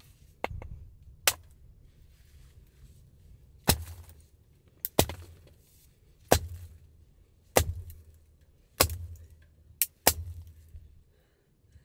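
Small hatchet splitting firewood on a wooden chopping round: a series of sharp wooden knocks, about one every second and a quarter, as the log stuck on the blade is struck down onto the round.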